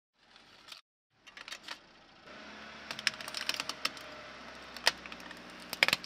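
Hollow plastic toy duck crackling and cracking as a slowly rolling car tyre crushes it, a run of sharp clicks and snaps over a steady rolling noise, with the loudest cracks about five seconds in and just before the end.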